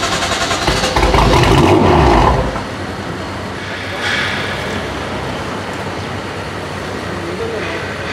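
BMW M5 F10's twin-turbo V8 with an Akrapovic exhaust being cranked on a low battery: rhythmic starter cranking, then a loud surge of firing about a second in that dies away after about a second and a half, a failed start on a flat battery. A steadier, quieter noise follows.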